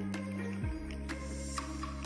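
Background music: sustained low bass notes that change pitch about once a second, with light ticking percussion above them.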